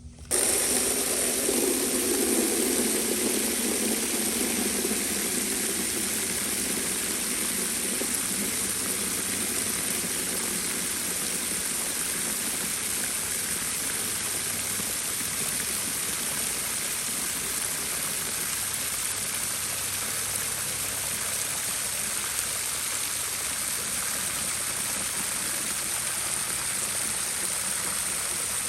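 A steady rushing noise that starts abruptly and holds evenly, with a deeper part that fades over the first few seconds.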